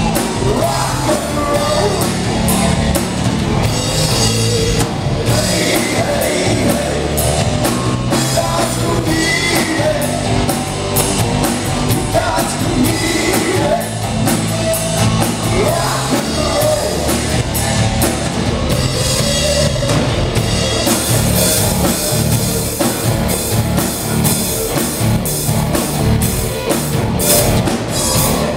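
Live rock band playing loud: electric guitar, bass guitar and drum kit, with a singer's vocal line over the first part. About two-thirds through, the cymbals get louder and more constant.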